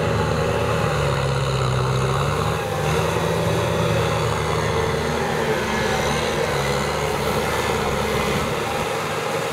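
Kubota M6040SU tractor's diesel engine running under load, its pitch dipping and rising a little as the tractor works through deep paddy mud.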